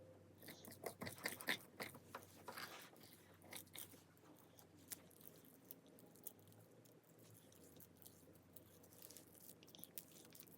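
Faint, scattered sticky clicks and crackles from slime and its glue being handled, denser in the first few seconds and then thinning out.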